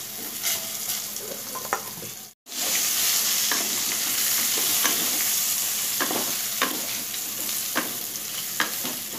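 Brinjal strips sizzling as they fry in hot mustard oil in a kadai, with short knocks and scrapes of a spatula against the pan as the pieces are turned. The sound cuts out briefly a little over two seconds in, and the sizzle is louder after it.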